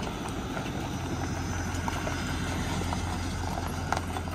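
Pickup truck engine running with a steady low hum as the truck tows a portable sawmill trailer slowly past.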